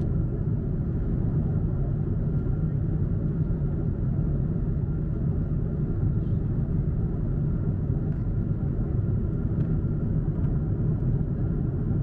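Steady low cabin rumble of a Boeing 747-8 in flight: the noise of its four General Electric GEnx engines and the airflow, heard inside the passenger cabin, with a faint steady high tone over it.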